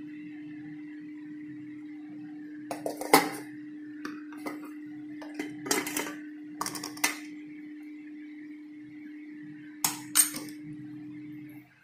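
Steel cooking pots and plates clinking and clattering as they are handled, in several short bursts, over a steady low hum that stops near the end.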